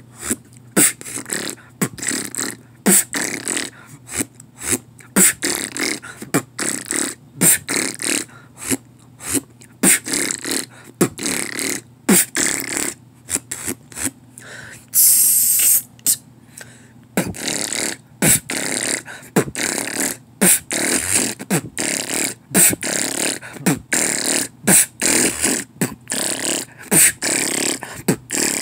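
Solo beatboxing freestyle: a steady rhythm of mouth-made kick and snare hits and clicks, with a longer hissing sound lasting a couple of seconds about halfway through.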